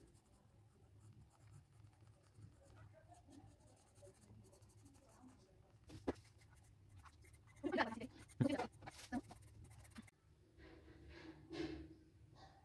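Faint scratching of a pencil on drawing paper as it sketches, with a sharp click about six seconds in and a few louder knocks around eight seconds in.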